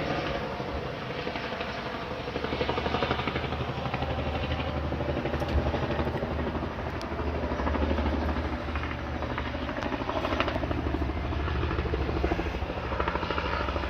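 Helicopter in flight: the rapid, even beating of its rotor blades over a steady engine sound.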